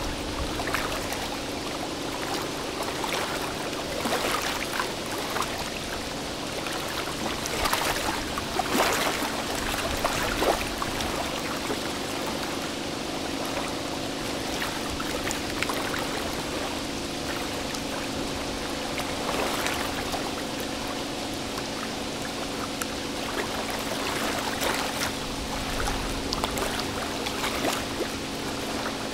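River water splashing and rushing against the hulls, over a steady low engine hum from the vessels alongside the quay.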